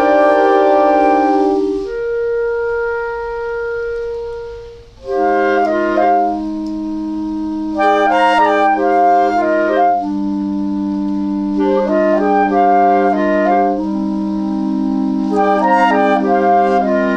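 Slow, layered clarinet music: several clarinet parts sound together. A held chord gives way about two seconds in to a single soft sustained note. After a short dip, low notes are held under repeated short runs of quick higher notes.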